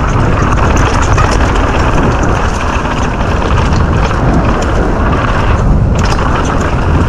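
Heavy wind buffeting on a helmet-mounted camera's microphone as a downhill mountain bike descends a rough trail at speed, with a dense run of small clicks and rattles from the bike over the ground.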